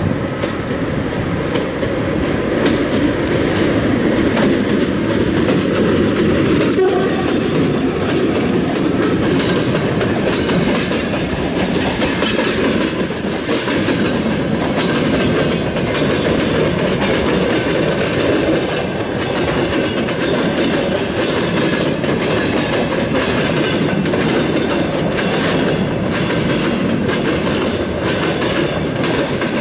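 A freight train hauled by a VL10U electric locomotive passing close by: the locomotive goes past first, then a long string of loaded hopper cars and gondolas rolls by with a steady heavy rumble and the clickety-clack of wheels over the rail joints.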